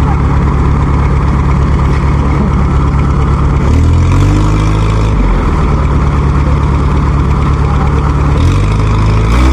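Engine of heavy farm machinery running steadily under load, revved up briefly about four seconds in and again near the end.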